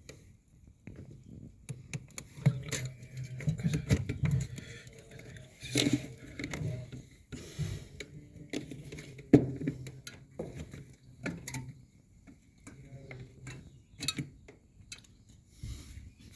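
Scattered light clicks and knocks of hands and tools handling refrigerator parts, irregular and uneven in loudness, with a low hum underneath.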